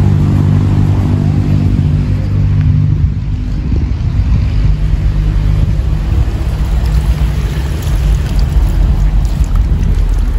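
Loud low rumble, with a steady hum in the first few seconds that gives way to a rougher, unsteady rumble.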